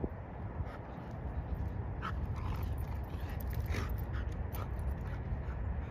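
Two dogs in rough play, with a few short yips and whimpers about two to four and a half seconds in, over a low steady rumble.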